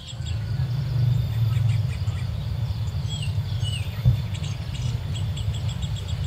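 Low steady rumble of outdoor ambience, with insects chirping in fast trains and two short bird chirps near the middle. A single thump comes about four seconds in.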